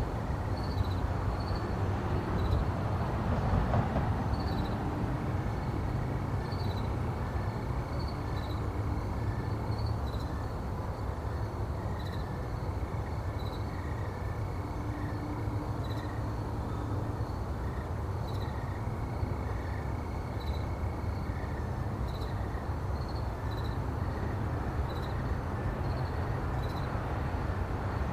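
A car driving at a steady speed: a continuous low rumble of engine and tyre noise, with insects chirping at a high pitch over it.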